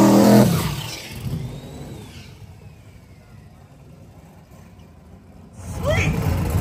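Drag race car engines. One runs loudly at close range and drops away about half a second in, leaving a quieter stretch with a faint falling whine. From about five and a half seconds in, another race car's engine runs loudly again.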